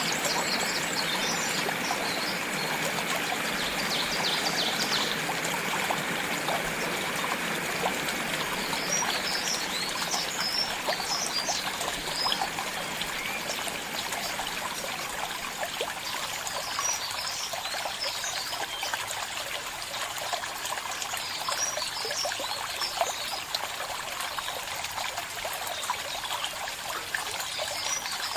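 A stream of water trickling and babbling steadily, with short high bird chirps now and then.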